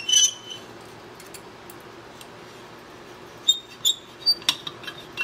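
Light metallic clicks and clinks, some with a short ring, as pliers work a tight steel shaft through the hub of a small model steam engine's flywheel. Two clicks come right at the start, then a quiet stretch with a low shop hum, then a quick cluster of clinks from about three and a half seconds in.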